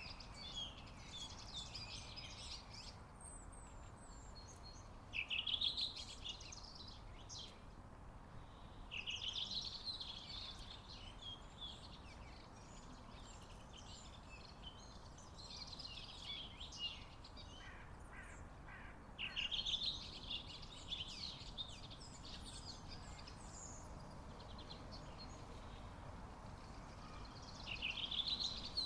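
Small songbirds singing in short, high, chattering phrases every few seconds over a steady low background rumble.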